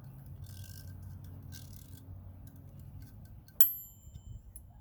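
Toaster oven's wind-up mechanical timer ticking as it runs down, then its bell dings once, sharp and ringing briefly, about three and a half seconds in: the timer has run out.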